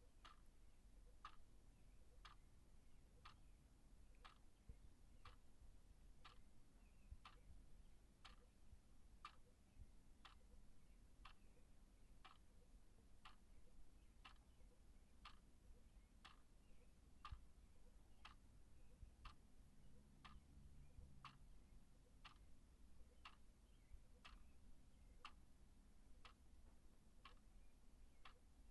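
Wall clock ticking quietly and steadily, about one tick a second.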